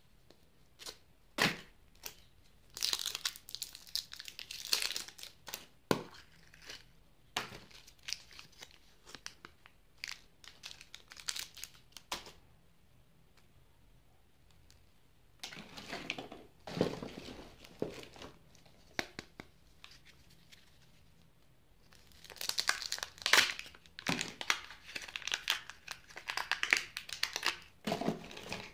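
Thin plastic toy wrappers and surprise-egg capsules being handled and opened: spells of tearing and crinkling plastic, the longest near the end, with sharp plastic clicks and snaps in the first few seconds.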